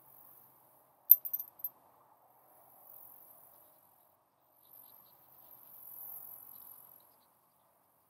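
Insects chirring in high-pitched stretches that fade in and out. About a second in comes a quick cluster of sharp clinks, the loudest sound.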